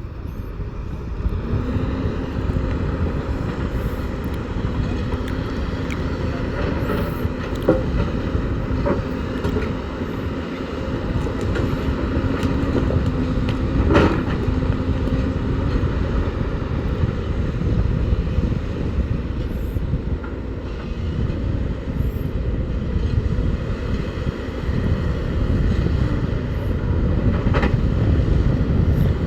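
Heavy diesel earthmoving machinery running steadily with a low rumble. A steady whine is held through the first half, and a few sharp metallic knocks come through, the loudest about halfway.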